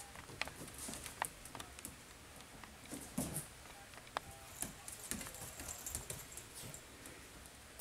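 Cavapoo puppies' claws clicking and pattering on a tile floor as they scamper and tug at soft toys: scattered light taps with a few soft thumps.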